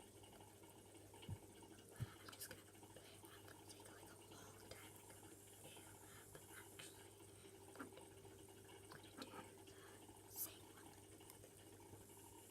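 Near silence with a scatter of faint soft clicks and wet ticks, like slime being pressed and handled.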